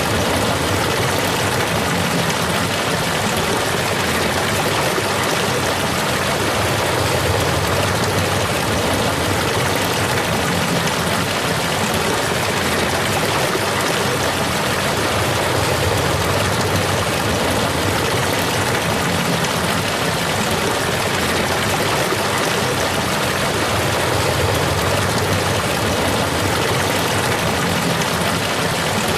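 Waterfall: water rushing and splashing in a steady, unbroken roar.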